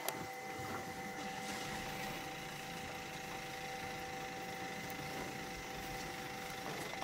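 A steady mechanical hum with a few held tones over a faint hiss.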